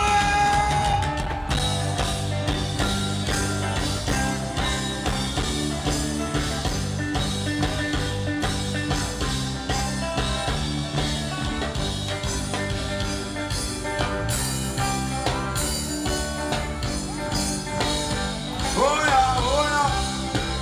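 Live band music, with bass and guitar playing a steady groove; a voice sings briefly near the end.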